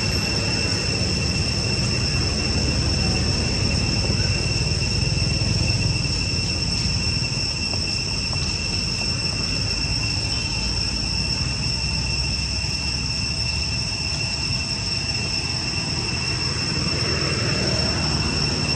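Steady, high-pitched insect drone running without a break, over a low rumble.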